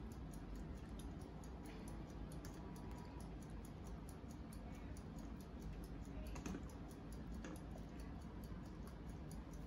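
Faint, scattered clicks and taps of a nylon ladle stirring and lifting thick rice porridge in a stainless steel stockpot, over a steady low hiss.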